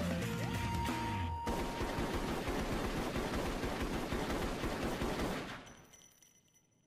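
Music stops about a second and a half in. Rapid automatic gunfire follows as a continuous stream of shots for about four seconds, then fades away.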